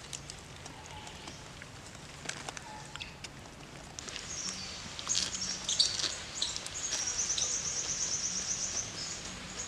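Forest birds calling, with high chirps from about halfway and a fast, even trill over the last couple of seconds, over soft clicks of someone chewing a lettuce-wrapped fish.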